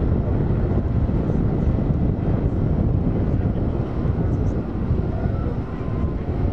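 Steady low rumble of engines and heavy machinery running, with no clear pitch and no sudden events.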